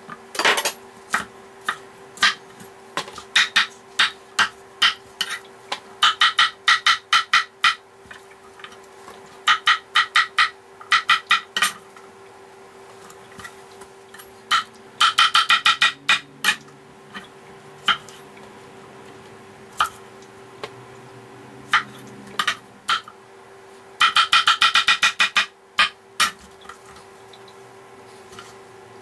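Kitchen knife chopping vegetables on a wooden cutting board: single knocks and several quick runs of rapid chops. A steady hum runs underneath.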